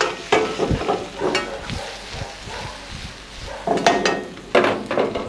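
Metal wok ladle scraping and clanking against a steel wok as diced bell peppers and onion are stir-fried, the vegetables sizzling steadily. The clanks come near the start, about a second in, and several around four seconds in.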